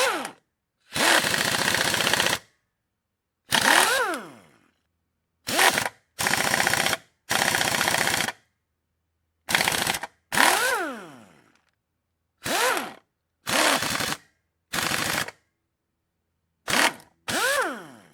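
Air impact wrench run in about a dozen short trigger bursts with gaps between, each a fast hammering rattle; several bursts end with the air motor's whine falling away as it spins down.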